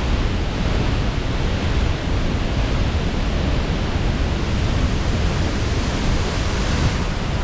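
A large waterfall heard up close: a loud, steady rushing roar of falling water with a heavy low rumble.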